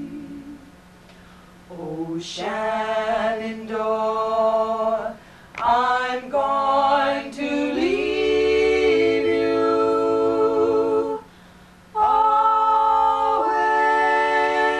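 Female a cappella trio singing in close harmony, holding long notes in phrases with short pauses between them.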